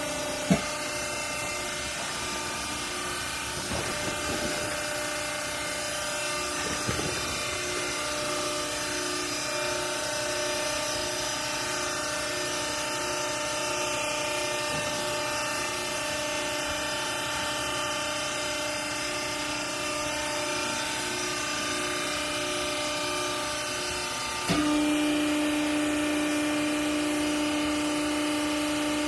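Hydraulic baler's electric motor and pump running with a steady hum, with a sharp click just after the start and a few light knocks. About three-quarters of the way through, the hum changes suddenly to a louder, lower tone.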